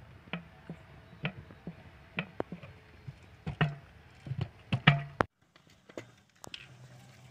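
A series of sharp clicks and knocks from a plastic bottle being handled and shaken, loudest around five seconds in, then cutting off suddenly.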